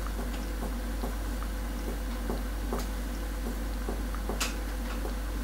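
Finger-on-finger chest percussion: a steady series of soft taps, about three a second, each with a short hollow ring, as the examiner percusses toward the right border of the heart listening for the note to turn flat. A sharper click about four seconds in, over a steady low electrical hum.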